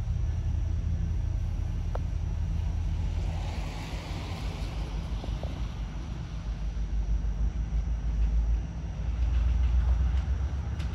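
Diesel locomotive engines of a freight train rumbling steadily, a low throb that grows louder in the second half.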